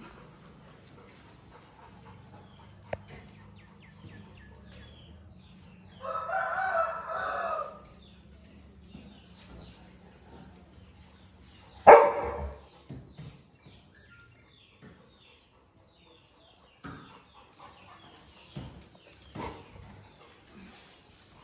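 A rooster crows once, a pitched call of about two seconds starting about six seconds in, with faint high chirping in the background. A single sharp knock about twelve seconds in is the loudest sound, followed by a few fainter knocks later on.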